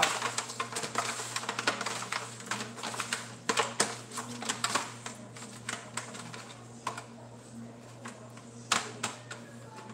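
Raw chicken drumsticks being tossed and mixed by hand with seasoning in a pan: irregular clicks and light knocks, busiest in the first half, with a few louder knocks a little before four seconds and again near the end.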